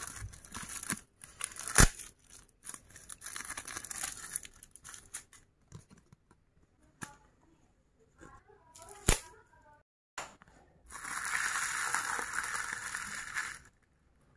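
Thin black plastic sachets being torn open and crinkled, with a few sharp clicks. Near the end comes a long stretch of crumpling as the empty wrappers are balled up in the hands.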